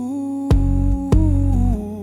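New-wave song: a long held vocal note without words over bass, with two sharp drum hits about half a second apart.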